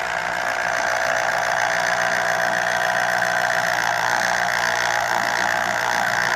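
Electric citrus juicer's motor running steadily, spinning the reamer as an orange half is pressed down onto it.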